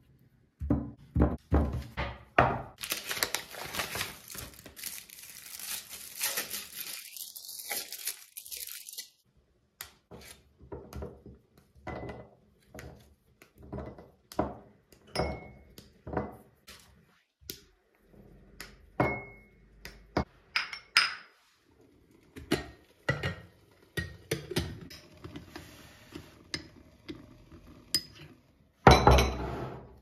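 Hands working at a tabletop: a few thunks, then several seconds of foil wrapper crinkling, then a string of snaps, knocks and light ringing clinks as chocolate is broken into small ceramic bowls. A loud rustle of paper comes near the end.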